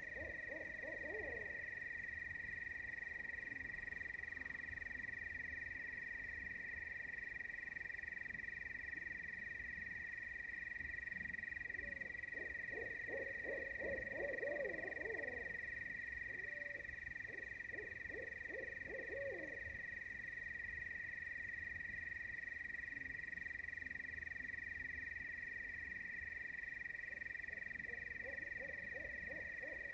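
A steady, high-pitched chorus of night insects with no let-up. Over it, low rippling animal calls come and go in bouts: one at the start, two in the middle and one near the end.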